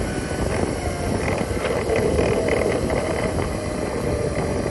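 2016 Segway X2 rolling on pavement: steady tyre and motor noise with a faint wavering whine and light irregular ticking. This is the intermittent drivetrain noise that brand-new couplings have not cured, which the rider finds comes mostly from the left side when slowing down.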